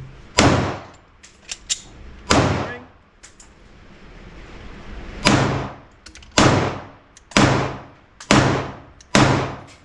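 Seven shots from a PSA Dagger 9mm pistol: two about two seconds apart, then after a pause five in a row about a second apart, each a sharp crack with a short decaying tail.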